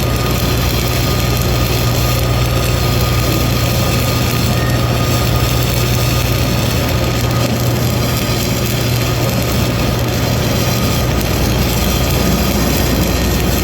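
Self-shielded flux-cored arc welding with Lincoln NR-233 5/64 wire: a steady, loud arc noise over a strong low hum.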